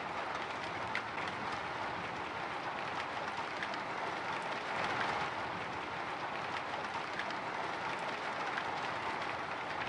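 Light drizzle falling on a window: a steady hiss of rain with scattered small ticks of single drops striking the glass.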